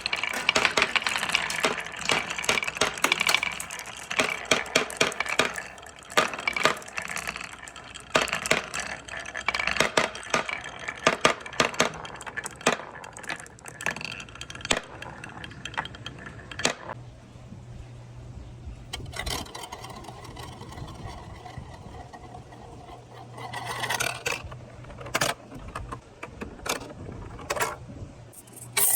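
Marbles and balls rolling and clacking down a marble-run track: dense rapid clicking at first, thinning out to scattered clicks about halfway through, with a short louder clatter near the end.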